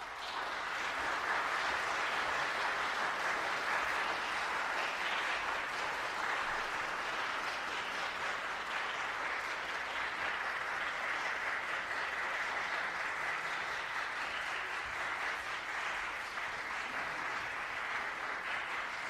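Audience applauding steadily, a dense wash of clapping.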